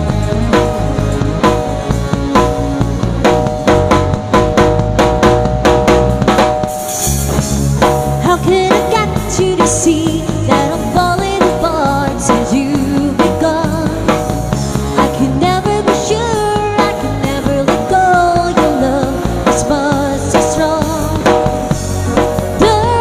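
Live band music: a drum kit and bass guitar keep a steady beat under a wavering lead melody line.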